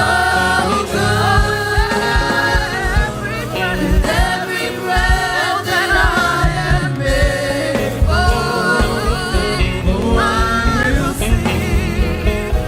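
Live gospel worship music: singers with a band, bass and drums keeping a steady beat.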